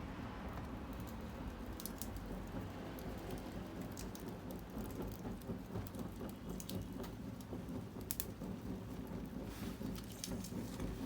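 Wood fire burning, with scattered sharp crackles and pops over a steady low rushing noise.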